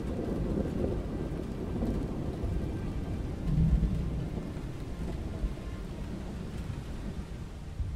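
A low, rolling rumble under a soft hiss, swelling briefly about three and a half seconds in.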